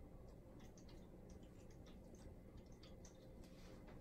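Near silence: room tone with scattered faint, irregular small clicks.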